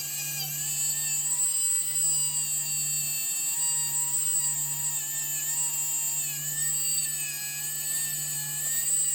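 Small electric power tool running steadily with a high motor whine that wavers slightly in pitch.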